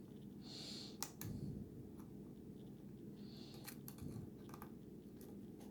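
Faint, scattered clicks of a lock pick working the security pins of a Schlage pin-tumbler lock during single-pin picking, over a low steady hum.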